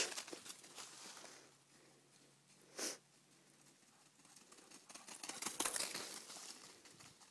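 Faint rustling of dry fallen leaves underfoot, with a short sharper rustle about three seconds in and a longer spell of irregular rustling past the middle.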